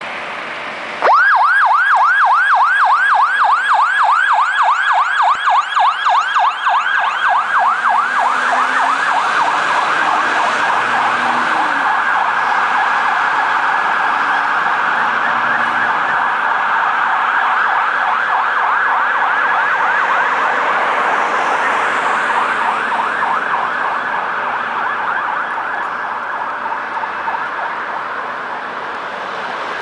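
Fire engine siren switched on about a second in, sounding a fast rising-and-falling yelp of about five or six sweeps a second. It is the alarm signal of a turntable ladder fire truck on an emergency run, growing slowly fainter toward the end as the truck drives away.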